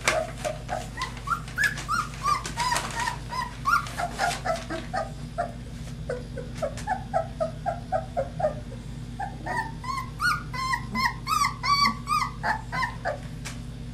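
Puppies whimpering and squealing: short, high, rising-and-falling cries a few each second, which crowd together and climb higher in the last few seconds.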